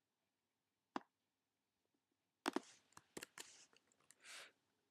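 A few faint, sharp clicks of a computer mouse: one about a second in, a quick cluster in the middle and another near the end, followed by a short soft rustle.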